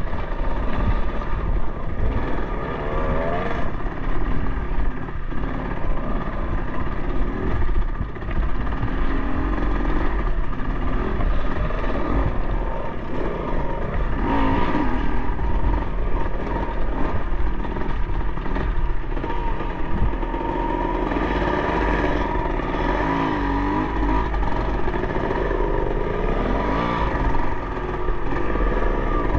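Dirt bike engine working at low speed up a rocky singletrack, its revs swelling and dropping again and again as the throttle is worked.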